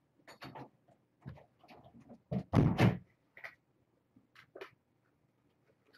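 Kittens scrambling and playing over toys, with scattered light scratches and knocks and one loud bump lasting about half a second, two and a half seconds in.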